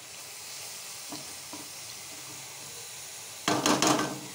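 Onion-tomato masala sizzling in a wok as it is stirred with a silicone spatula, a steady hiss with a few faint clicks. About three and a half seconds in, a short, much louder burst of noise lasts just over half a second.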